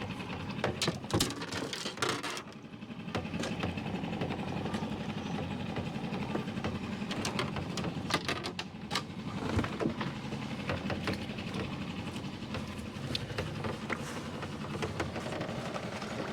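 Small boat motor running steadily at low speed, with scattered knocks and clicks over it.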